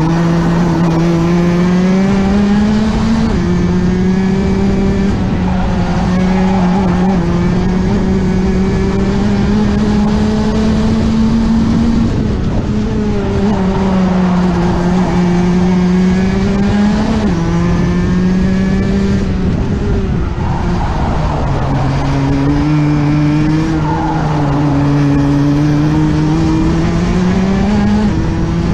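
Rotax two-stroke kart engine heard on board at racing speed. Its pitch climbs steadily along the straights and drops sharply several times as the driver lifts off for corners, then climbs again.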